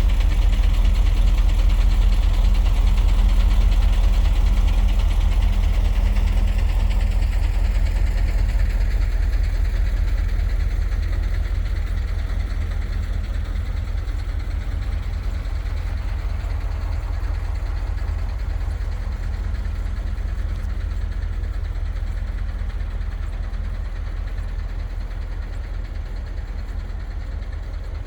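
A vehicle engine running steadily, a low rumble with a steady hum that slowly fades.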